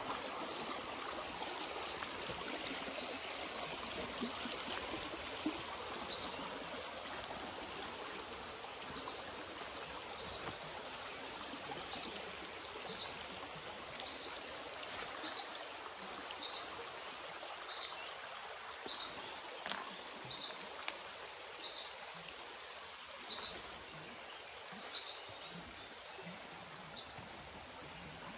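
Shallow rocky brook running and trickling over stones in a steady rush. A short high chirp, likely a small bird, repeats about once a second through most of it, and a few soft thuds come in the second half.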